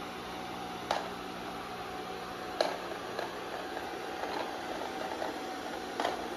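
Amarey robot vacuum cleaner running with a steady hum, with three short sharp knocks.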